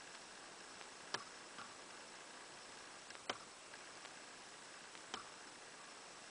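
Faint steady hiss of a quiet outdoor recording, broken by three sharp single clicks spaced about two seconds apart.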